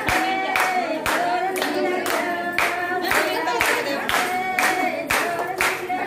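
A group of women singing a folk song unaccompanied, with steady rhythmic hand clapping at about two claps a second.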